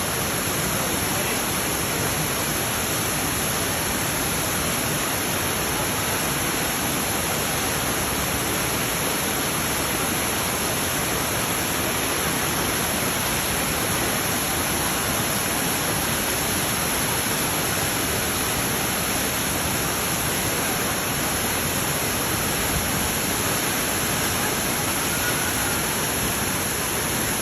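Steady rush of a large waterfall, a loud even wash of falling water.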